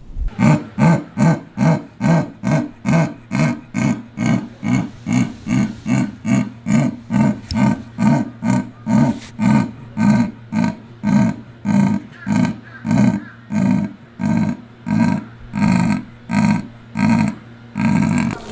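A big cat calling in a long, even series of deep grunts, about two a second, stopping just before the end.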